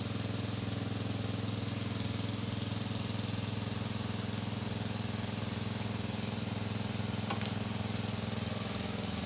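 Small engine of a water pump running steadily at constant speed, draining the ditch, over the rush of muddy water flowing past.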